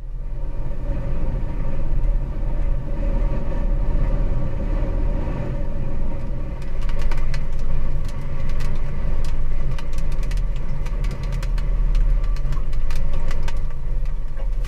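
Hurricane wind rumbling steadily on the microphone of an unattended camera, with scattered sharp ticks in the second half.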